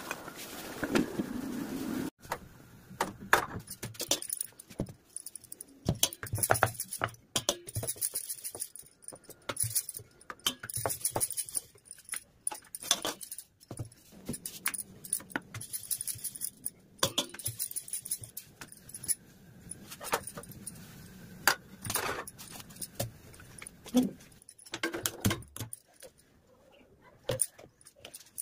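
Steel kitchen utensils clinking, knocking and scraping against pans and a stove, in many short irregular strikes.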